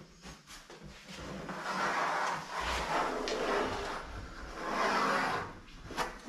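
Pencil being drawn along the rim of an inset sink, tracing its outline onto masking tape on the worktop: a steady rubbing scrape that builds about a second and a half in and swells again near the end.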